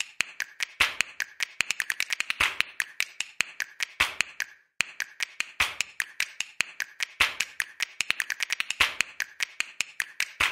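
Rapid, uneven series of sharp clicks, a ticking sound effect for text typing itself onto the screen, with a brief pause about four and a half seconds in.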